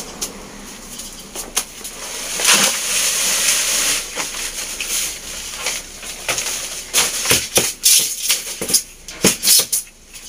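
Loose garden soil poured from a black plastic grow bag into a bucket. First comes a long rushing, rattling pour, a couple of seconds in. Then, in the second half, there is a run of sharp crinkles and crackles as the plastic bag is shaken and tipped empty.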